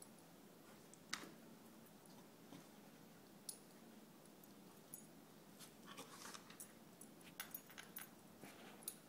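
Near silence with faint, scattered small clicks and wet smacks, coming thicker in the last few seconds: a Goldendoodle and an English bulldog nosing and mouthing at each other at a crate door.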